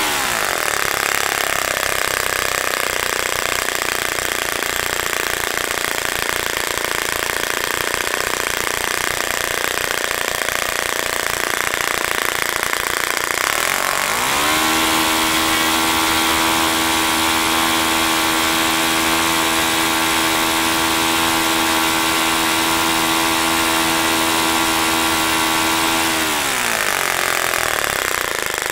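OS FS-30 Surpass four-stroke glow engine running with its propeller, throttled down from about 9,800 rpm to idle just after the start, idling for about 13 seconds, then opened up again to a steady high-speed run and throttled back down near the end. This is its first run on a freshly replaced valve spring, and it runs smoothly.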